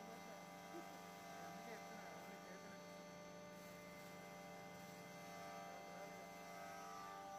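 Electric flour mill running with a faint, steady hum as soaked rice is ground into flour.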